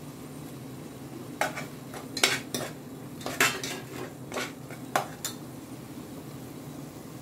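Metal spoon clinking and scraping against the inside of a pressure cooker while stirring, about nine sharp clinks spread between about a second and a half and five seconds in, over a faint steady hum.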